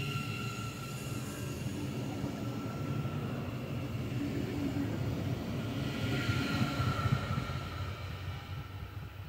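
Siemens Mireo electric multiple unit pulling away: a steady high whine from its electric drive over the rumble of wheels on the rails. It swells briefly about two-thirds of the way through, then fades as the train recedes.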